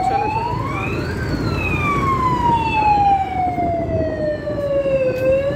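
Police patrol car siren wailing: it rises in pitch to a peak about a second in, falls slowly over about four seconds, then starts rising again near the end.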